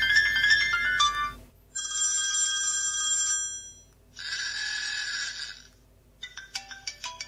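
Ringtone previews from a SciPhone iPhone 3G clone's speaker: four short tunes one after another, each cut off after a second or two when the next is chosen, the last a quick run of short notes. The tones are low-quality recordings, which the reviewer takes for ringtones recorded from a real iPhone 3G with a cheap microphone.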